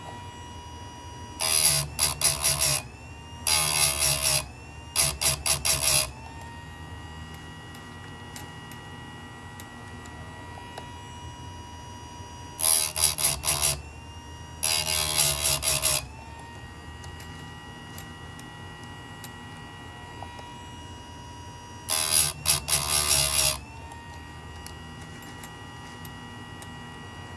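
Chicago Electric bench chainsaw-chain sharpener: its electric grinding wheel hums steadily and grinds loudly six times, each for a second or so, as it is pulled down onto the chain teeth. The grinds come three close together, then two, then one.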